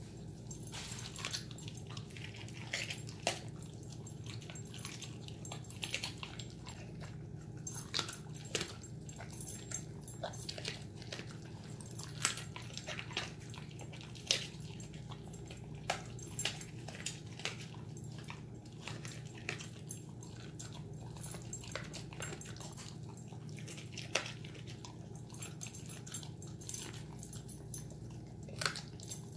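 An Alaskan Malamute crunching and chewing chicken feet, with irregular sharp cracks of bone between his teeth, over a steady low hum.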